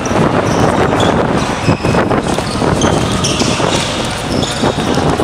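Basketball bouncing on a hard outdoor court during play, with short high squeaks of sneakers on the court surface.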